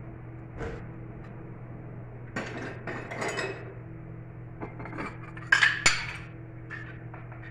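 Dishes and cups clinking and knocking as they are set onto kitchen cabinet shelves: a scattered run of short clinks, the two loudest about five and a half and six seconds in. A steady low hum runs underneath.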